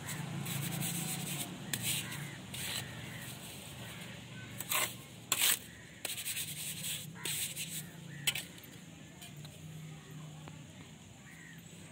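A steel mason's trowel scraping and spreading wet mortar on a concrete floor to make the bed for the next brick, with a few sharp knocks of the trowel about five seconds and eight seconds in.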